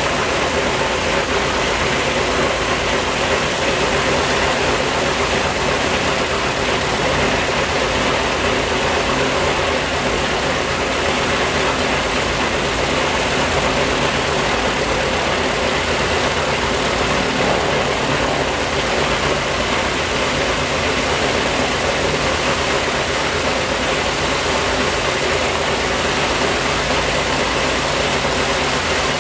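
Ilyushin Il-14T's left engine, an ASh-82T fourteen-cylinder twin-row radial, running at a steady speed with its propeller turning, a constant, even engine drone.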